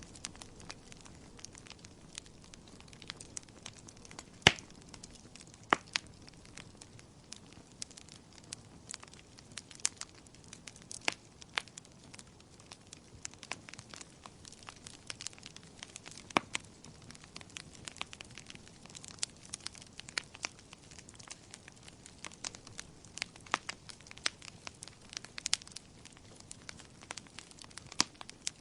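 Wood fire in a fireplace crackling: irregular sharp pops and snaps over a faint steady hiss, with a few louder pops about four and a half and six seconds in and again near the end.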